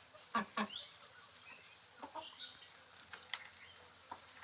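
Steady high-pitched drone of crickets, with a few short clucks from Kadaknath chickens, two close together about half a second in.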